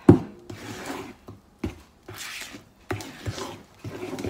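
A utensil scraping thick banana bread batter out of a mixing bowl, with several sharp knocks against the bowl, the loudest just at the start, and rasping scrapes between them.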